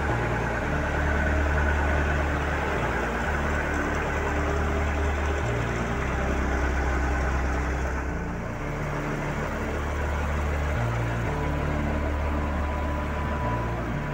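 Truck crane's engine idling steadily with a deep, even hum.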